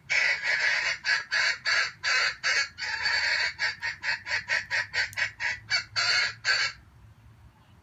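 A junglefowl calling a rapid run of about twenty short, loud calls, quickening in the middle and stopping about seven seconds in.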